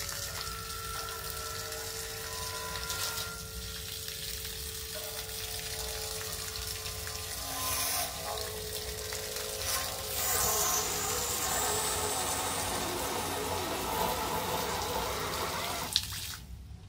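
Small homemade DC-motor water pump running, its jet of water splashing steadily with a faint steady whine under it. About sixteen seconds in a sharp click and the water noise stops suddenly as the pump is cut off.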